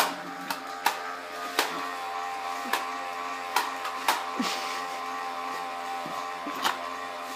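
Small electric motor of a bubble machine whirring steadily, with a handful of sharp ticks scattered through it.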